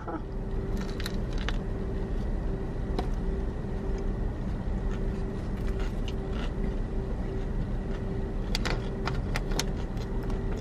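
Steady low hum of a car idling, heard from inside the cabin, with scattered small clicks and crinkles from eating a sandwich off its paper wrapper, a cluster of them near the end.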